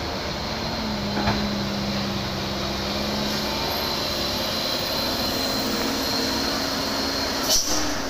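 Hino dump truck's diesel engine running slowly through a tight hairpin turn, a steady low drone, with a short sharp sound near the end.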